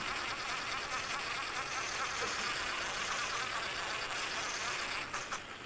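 Cordless drill spinning a wire brush against the steel gear-case mounting studs of a Mercury outboard, scrubbing off corrosion and buildup: a steady buzzing whir that dips briefly about five seconds in.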